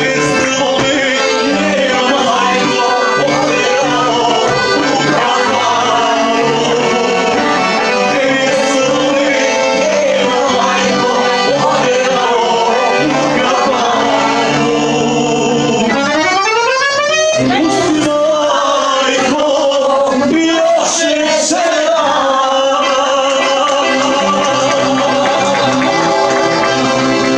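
Accordion-led Balkan folk music with singing over a steady, repeating bass line; a fast rising run sweeps up a little past halfway.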